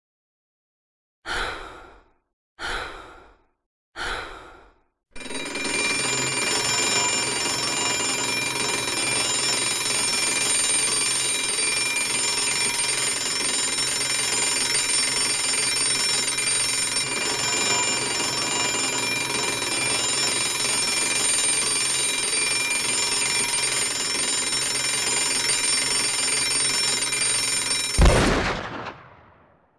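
Three short bursts about a second and a half apart, then an alarm clock ringing without a break for over twenty seconds. A single gunshot, the loudest sound, cuts the ringing off near the end.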